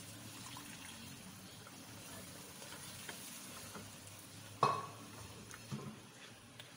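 Mutton stock poured into a hot kadhai of fried qorma masala, sizzling, then stirred in with a spatula; one sharp clank of the spatula on the pan a little past halfway. This is the stage where stock is added to the browned masala to make a light gravy.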